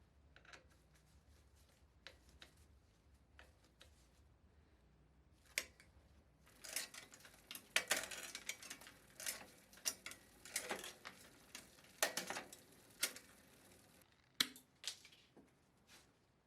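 Hand tools and bicycle parts handled at a workbench: faint, scattered metal clicks that turn into a busier run of clicking and light clatter through the middle, then a few last clicks.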